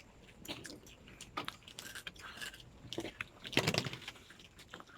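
Someone biting and chewing a crunchy snack close to the microphone, in scattered crunches with a louder cluster about three and a half seconds in.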